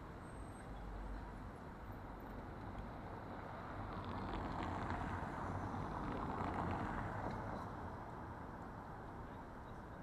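Riding noise of an electric scooter on city streets, picked up by an action camera mounted on it: a steady rumble with some wind, swelling louder from about four to seven seconds in, with a few light rattles.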